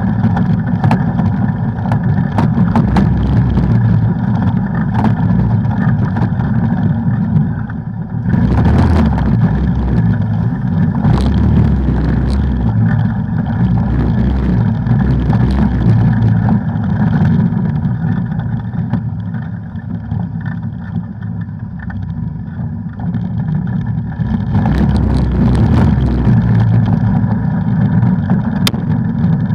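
An off-road vehicle's engine running under way, with scattered knocks and rattles. The engine eases off for a moment about a quarter of the way in and for a longer spell about two-thirds through, then picks up again.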